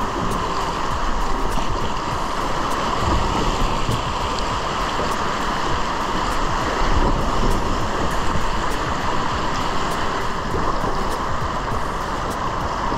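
River water rushing over shallow rapids right at the microphone: a steady rush with occasional low buffeting swells.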